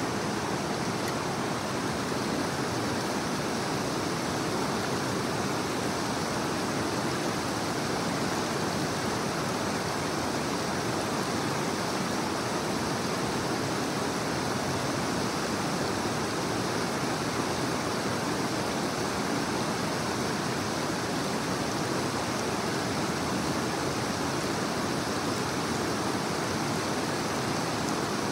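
Creek water rushing steadily over rocks in a shallow rapid, an even, unbroken rush.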